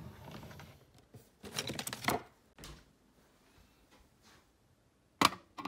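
Hands handling objects: a rustle, a short rattling clatter about a second and a half in, then two sharp clicks near the end.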